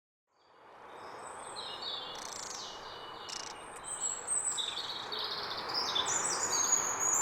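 Birdsong: several birds chirping and trilling over a steady background hiss, fading in from silence over the first second and growing busier toward the end.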